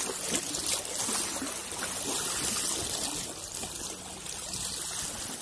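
Gentle wavelets of a calm sea lapping over a pebble shore, water trickling and fizzing among the stones.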